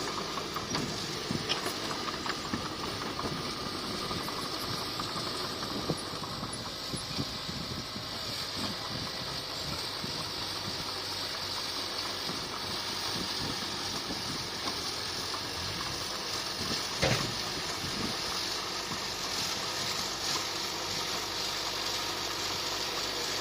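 Komatsu bulldozer's diesel engine running steadily, with a few sharp metallic knocks; the loudest comes about two-thirds of the way through.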